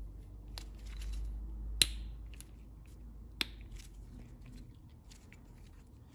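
Sharp plastic clicks as a small rocker switch is pressed and worked into its trimmed plastic housing, the loudest a little under two seconds in, with low rumbling handling noise under them in the first half.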